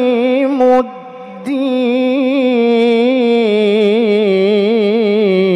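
Male Qur'an reciter chanting in the melodic tilawah style, drawing out the word "aqimu" in a long melismatic held note. The note wavers in rapid ornaments and sinks slightly in pitch before ending near the end.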